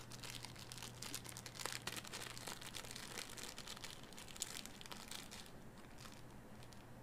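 Packaging crinkling and rustling as a small earphone accessory is handled and unwrapped: a run of small crackles that thins out after about five seconds.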